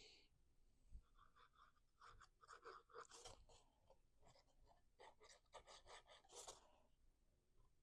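Faint rustling and crinkling of cardstock pieces being handled and fitted together, in short scattered bursts.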